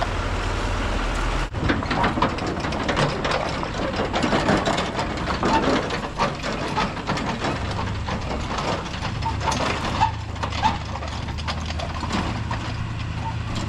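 GMC Denali HD pickup engine running as the truck pulls in slowly, with many scattered clicks and crackles over a steady low hum. A sudden break about one and a half seconds in.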